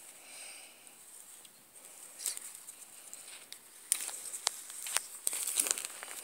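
Blue-and-gold macaw playing on its back on bedding with a tennis ball: soft rustling and scratching of feathers and claws on the cloth, then a run of sharp clicks and taps in the second half as it grips the ball with its beak and feet.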